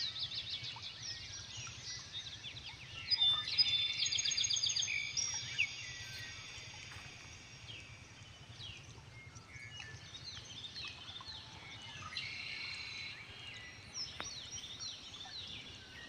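Several birds singing and calling together, with many quick high chirps and trills overlapping. The chorus is densest and loudest from about three to six seconds in, then thins to scattered calls.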